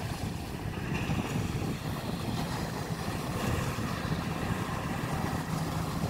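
Wind rumbling unevenly on the microphone by open harbour water. A faint steady low hum comes in about four seconds in.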